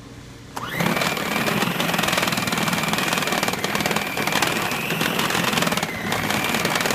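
Braun CombiMax 600 food processor switched on, its motor starting abruptly and running steadily with a high whine as the blade churns a thick marzipan mixture; the pitch dips briefly twice.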